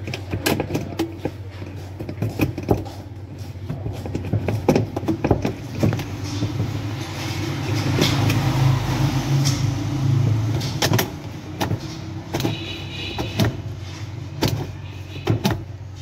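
Hard plastic parts of a semi-automatic washing machine's drain-valve housing being handled and fitted, giving scattered clicks and knocks over a steady low hum. A louder wash of noise swells for a few seconds in the middle.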